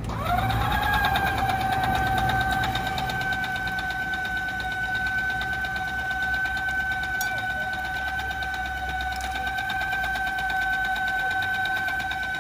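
Electric sugarcane juicer running as sugarcane stalks are fed through its crushing rollers. It starts with a short rising whine as the motor comes up to speed, then holds a steady, high whine over a fine, rapid rattle of the rollers and gears.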